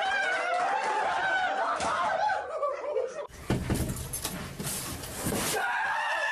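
A high-pitched, drawn-out voice wavering up and down for about three seconds. Then a couple of seconds of clattering, rustling noise, and a man's sustained yell as he jumps out of a cardboard box as a scare prank.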